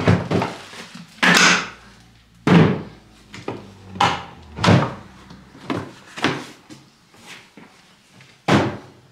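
Hard plastic Milwaukee Packout tool boxes being handled and set down: a string of separate knocks, clacks and short scrapes, the loudest about a second in, about two and a half seconds in, and near the end.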